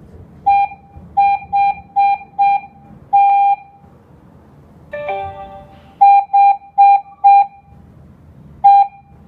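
Keypad beeps from a KERUI G90B alarm control panel as a password is keyed in: a run of short, identical single-pitch beeps, one held a little longer about three seconds in. About five seconds in, a different, fuller tone with a falling note sounds, then four more key beeps and a last one near the end.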